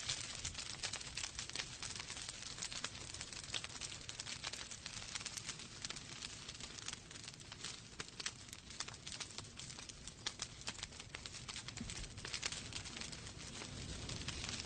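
Wood fire burning in a fireplace, crackling and popping irregularly over a steady hiss.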